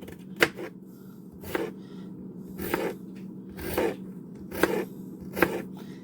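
Knife cutting through peppers, each stroke a crisp crunch and tap, about one a second, as they are chopped into small pieces.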